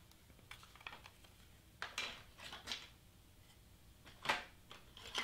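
Faint, sparse clicks and light taps of a clear plastic case of hobby knife blades being handled and set down, with a slightly louder clatter about four seconds in.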